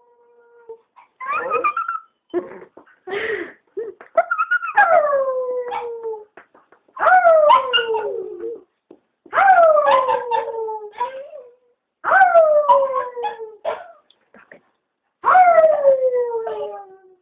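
Chihuahua howling: a few short yips and cries at first, then five long howls about every two and a half seconds, each starting high and sliding down in pitch.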